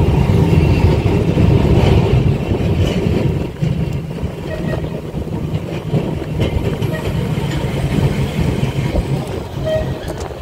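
1934 English Electric open boat tram running on street track: a steady rumble of motors and wheels on rail, easing a little in level about three and a half seconds in.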